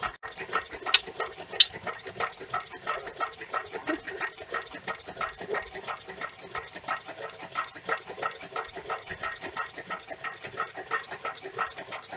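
Homemade coal-fired Stirling engine generator running with a steady rhythmic beat, about three to four beats a second. Two sharp clicks come about a second in.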